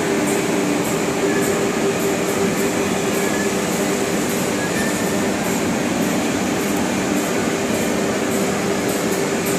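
Steady drone of running CNC router machines and general hall noise, with two steady hums and faint high ticks every so often.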